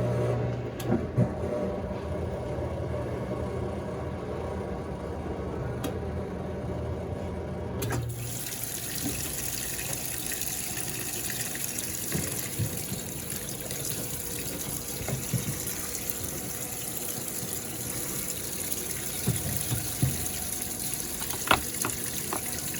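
Brastemp Baby Mondial BLK20 washing machine: a steady electric hum from its drain pump cuts off about eight seconds in, and water then rushes steadily into the tub as it fills for the rinse. A few light clicks near the end.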